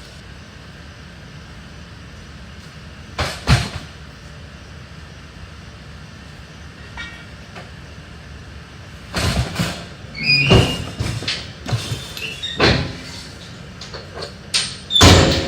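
Loading a truck with junk: knocks and clatter of debris and truck parts being moved, with a few short metallic squeaks, over a steady low hum. There are two knocks about three seconds in, then a busier run of banging and clattering through the second half.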